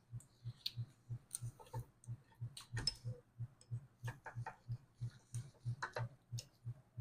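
Scattered light metallic clicks and taps as a brake caliper, its pads and slide pins are handled and fitted together, over a steady low pulse repeating about three times a second.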